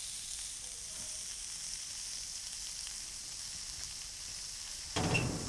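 Grease and meat sizzling on a ridged grill pan over a portable gas stove, a steady high hiss. About five seconds in it swells suddenly into a louder, fuller sizzle.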